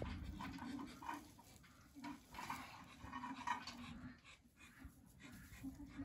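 Dogs panting faintly, with a few short whines, excited at feeding time.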